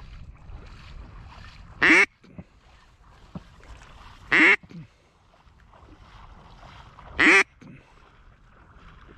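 Three loud single duck quacks, spaced about two and a half seconds apart.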